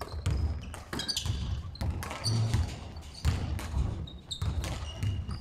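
A basketball bouncing on a wooden sports-hall floor in irregular dribbles, with short high squeaks of trainers on the court in between.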